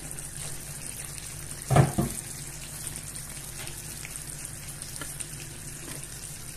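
Chicken tagine in an earthenware tagine dish simmering over a gas flame, its sauce sizzling and bubbling steadily once cooked. A single loud clunk about two seconds in as the clay lid is lifted off and set down.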